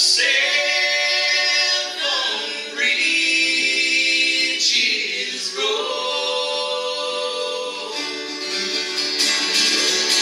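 Two men and a woman singing together in close vocal harmony, unaccompanied, on long held notes. Acoustic guitar strumming comes in near the end.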